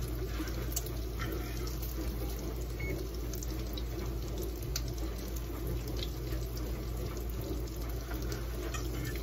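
Prosciutto sizzling steadily in a hot frying pan, with a few light clicks of a fork against the pan.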